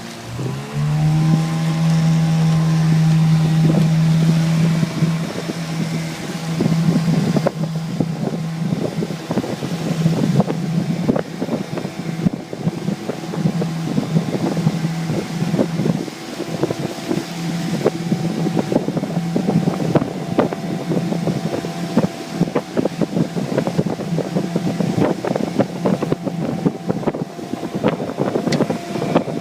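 15 hp Mariner outboard motor throttling up in the first second and then running steady under way, with wind buffeting the microphone and frequent sharp knocks throughout.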